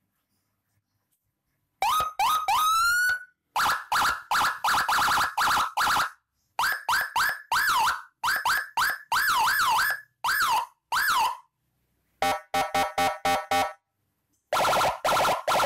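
Six-tone Landun Whelen police-escort siren module sounding in short on-off bursts, starting about two seconds in and switching between tones: a few rising whoops, fast up-and-down yelps, then a rapid stepped, pulsing tone.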